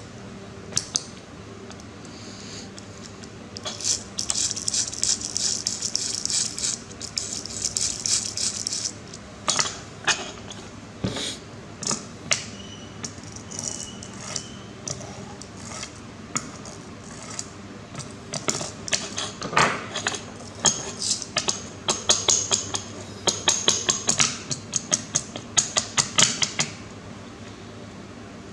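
Small parts being handled and worked by hand: scattered clicks and taps, with two longer stretches of scraping or rasping, over a low steady hum.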